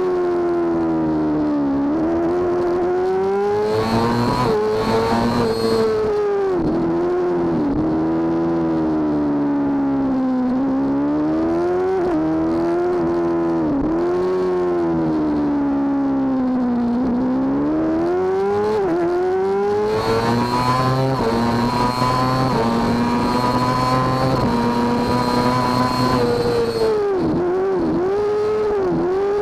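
Road-racing motorcycle engine heard onboard at racing speed, revving hard and climbing in pitch, with short sharp pitch drops at gear changes and deeper dips when it slows for corners. From about twenty seconds in it holds a high, steady pitch on full throttle for several seconds before falling away again near the end.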